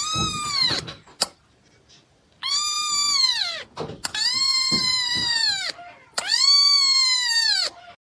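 Cat meowing loudly: one short meow, then three long, drawn-out meows, each falling in pitch at the end.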